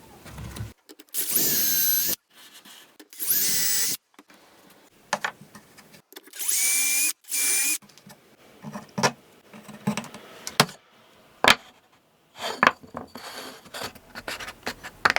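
Power drill running in four short bursts of about a second each, spinning up in pitch at the start of each: boring dowel holes at a miter joint. Scattered knocks and taps follow in the second half.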